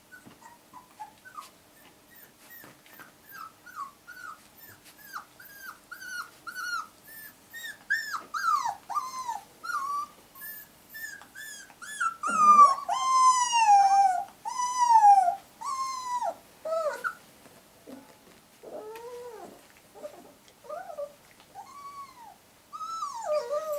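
Golden retriever puppies whimpering: a string of short, high, falling whines about two a second, swelling into longer, louder whines about halfway through, then trailing off into scattered lower squeaks.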